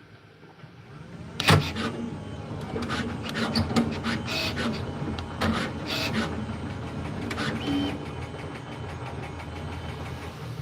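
3D printer running: a steady motor hum with a series of sharp clicks and clunks from its moving parts.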